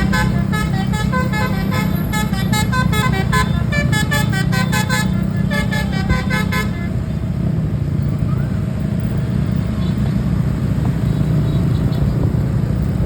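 A Basuri telolet musical horn on a Tunggal Jaya bus plays a fast melody of short stepped notes, stopping about seven seconds in. An engine keeps running steadily underneath.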